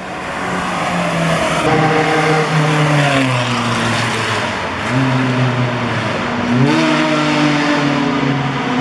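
Car engine running hard on a race track, its pitch climbing, easing off and climbing again with a gear change, over a loud steady rushing noise.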